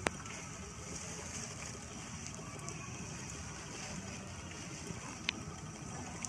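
Steady outdoor background noise with no distinct source, broken by two brief sharp clicks, one at the start and one about five seconds in.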